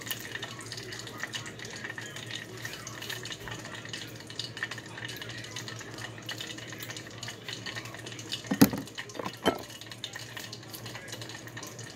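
Steady kitchen background hiss with a faint low hum. About two-thirds through come two sharp knocks about a second apart, from handling things at the counter.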